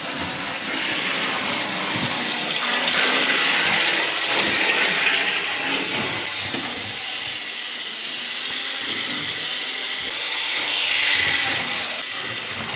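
Model tram's small electric motor whirring and its wheels running on the rails, a steady noisy whirr that swells louder twice as it passes close.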